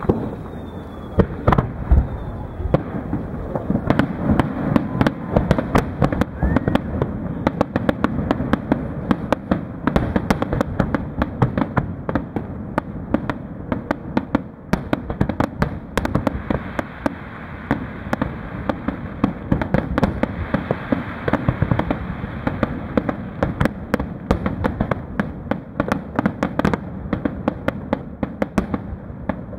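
Aerial firework shells bursting in a dense barrage, many sharp bangs and crackles in quick succession over a continuous low rumble.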